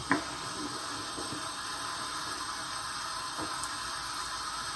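Rice being stirred with a wooden spoon in a large stainless-steel pot of hot water over high heat: a steady, soft watery hiss.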